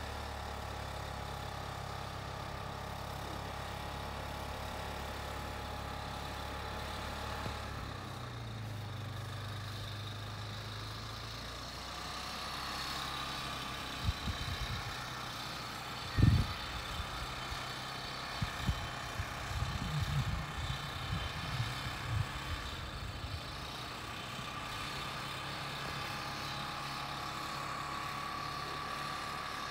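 1999 Yamaha Kodiak 400 ATV's single-cylinder engine, quieted by a Kolpin Stealth muffler, running steadily under load while plowing deep snow, heard from some 50 to 125 feet away. The engine note rises about eight seconds in. A few low thumps come around the middle, the loudest about sixteen seconds in.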